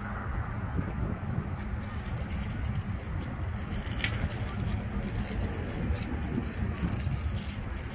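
Steady outdoor road traffic noise, a low rumble with no single vehicle standing out, and one brief sharp click about four seconds in.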